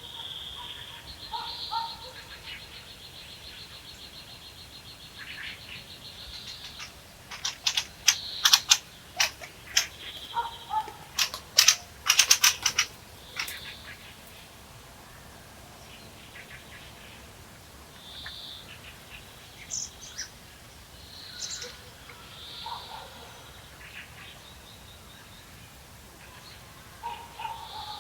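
Songbirds calling in a spring pine forest. A rapid high trill runs over the first several seconds, then come two loud runs of sharp clicking notes, then scattered short high calls.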